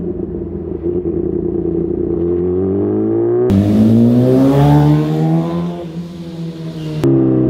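Kawasaki ZX-10R inline-four with an aftermarket exhaust, heard from the rider's seat cruising and then starting to pick up revs. About three and a half seconds in, the sound switches to the bike heard from the roadside as it accelerates past, its pitch climbing and then dropping as it goes by. Near the end it switches back to the steady onboard engine note.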